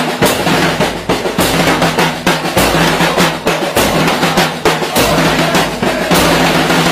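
Bass drums and snare drums of a supporters' drum band playing a continuous rapid beat, heard close up at the drums.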